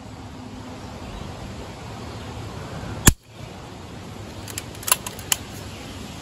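A moderated Umarex Notos PCP air rifle fires once about three seconds in: a single sharp crack, the loudest sound here. A few lighter clicks follow about a second and a half later.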